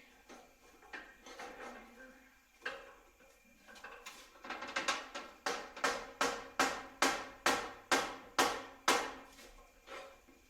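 Hammer blows driving a motorcycle rear axle out through a spacer it is hanging up on: a few scattered knocks, then a steady run of about fourteen ringing strikes, roughly three a second.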